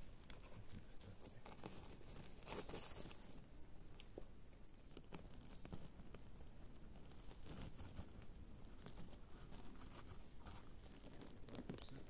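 Dry spruce needles and twigs on the forest floor crackling and rustling as a hand grips and twists porcini mushrooms out of the ground, in irregular small crackles and snaps.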